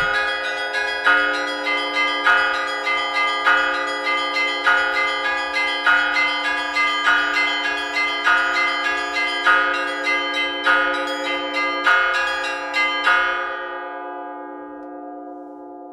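Russian church bells ringing a zvon: smaller bells struck in a quick, even pattern of about two strokes a second over the sustained tones of larger bells. The strokes stop about 13 seconds in, and the bells ring on and slowly fade.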